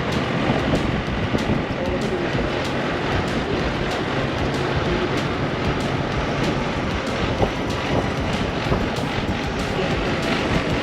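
Road vehicle's engine and tyre noise heard from inside the cabin while driving uphill, steady throughout, with frequent light rattling clicks.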